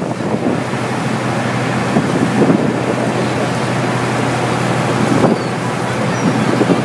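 Wind buffeting the microphone on a moving ferry's open deck, over the steady hum of the boat's engine and the rush of water from its wake.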